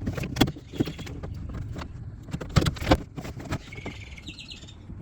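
Irregular clicks and knocks of hands working the metal door-handle rod loose from the door lock actuator's yellow plastic clip, with a brief faint scrape near the end.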